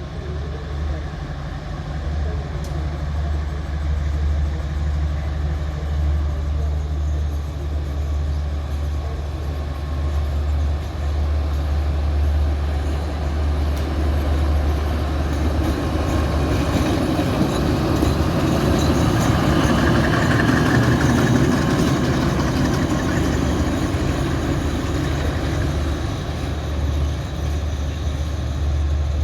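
Alsthom diesel-electric locomotive running with a steady, deep engine hum. The sound grows fuller and louder about two-thirds of the way through, then eases back.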